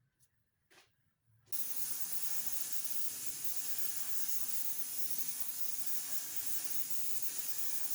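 Automotive paint spray gun hissing steadily with compressed air while laying on color coats, starting about a second and a half in after near silence.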